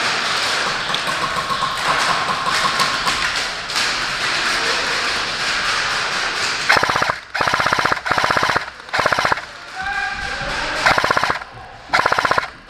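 Airsoft gun firing short bursts of full-auto fire: six bursts of rapid, evenly spaced shots, starting about six and a half seconds in, after steady background noise.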